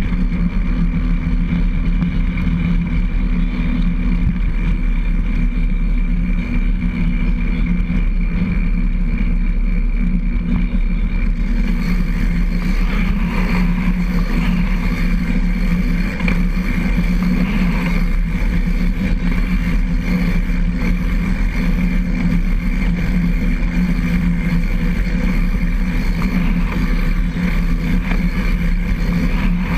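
Recumbent trike rolling along a concrete trail: steady tyre and drivetrain rumble with a constant hum and wind on the microphone.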